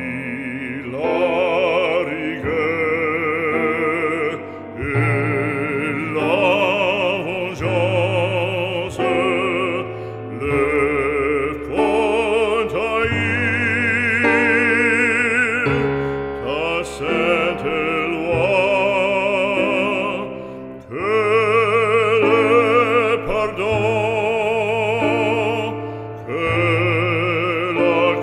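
Operatic singing with strong vibrato over classical accompaniment, in long phrases with short breaks between them.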